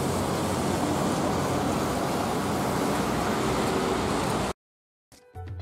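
Steady hiss and rumble of traffic on a wet city street, which cuts off abruptly about four and a half seconds in. After a brief silence, music begins near the end.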